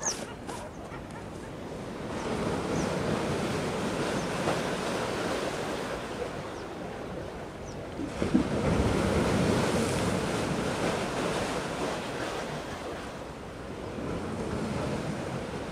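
Sea waves washing in and wind buffeting the microphone, a rushing noise with no engine tone, swelling about two seconds in and again, more strongly, about eight seconds in.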